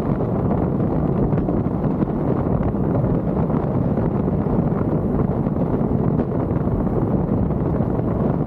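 Steady wind and road noise of a car driving: an even, low rumbling rush with no distinct engine note.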